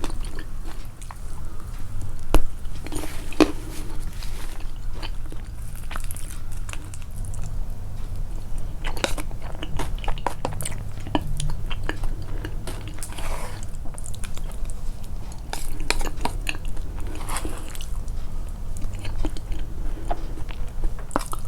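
A person chewing and biting food up close, with the chewing sounds amplified: a continuous run of soft crunches and sharp mouth clicks, the loudest click about two and a half seconds in.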